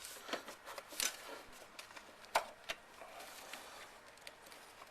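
Faint, scattered clicks and taps of needle-nose pliers gripping and working a spark plug cap loose, with the sharpest clicks about a second in and around two and a half seconds.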